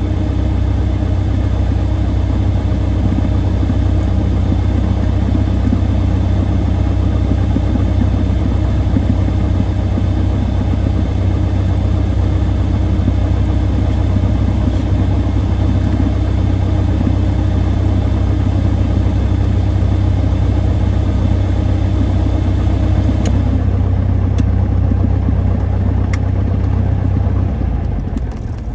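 Cessna 172's piston engine idling steadily, heard from inside the cockpit. Near the end the engine note dies away as the engine is shut down.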